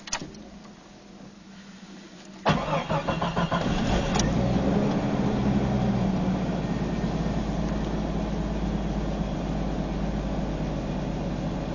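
1993 Jeep Cherokee engine being cold-started: it cranks and catches about two and a half seconds in, fires unevenly for a second or so, then settles into a steady fast cold idle that eases off slightly. The owner is troubleshooting a rough idle with a tapping that he suspects may be piston slap or lifters.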